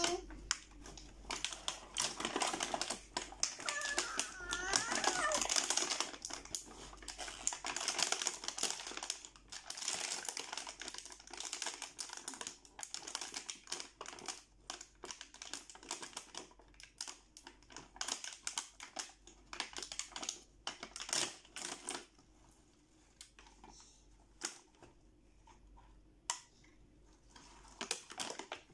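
Thin clear plastic blister packaging crackling and crinkling in irregular bursts of clicks as small plastic toy kitchen pieces are pulled out of it, growing quieter and sparser for the last several seconds.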